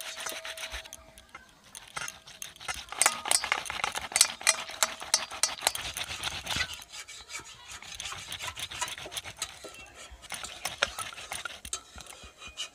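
Fire-roasted tomato being grated on a plastic box grater standing in a steel bowl: rapid rasping strokes of the soft flesh over the grater teeth, with a short lull about a second in and the strongest strokes a few seconds in.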